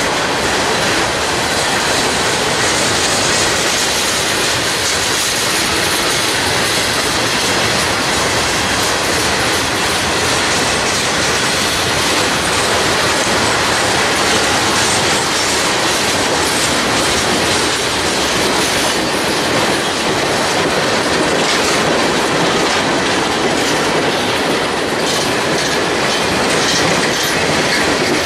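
Freight train of boxcars and tank cars rolling past close by: a steady loud rumble and rattle of steel wheels on rail, with a faint steady high whine from the wheels and sharp clicks over rail joints in the second half.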